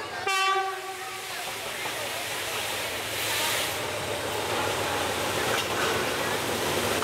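Diesel locomotive's horn sounding once for about a second, then the steady rumble and hiss of the train approaching along the track, growing louder.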